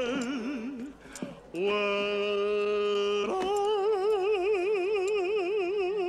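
A man's voice imitating bagpipes: long held wailing notes over a steady drone, breaking off briefly about a second in, then a quickly wavering note from about three and a half seconds in.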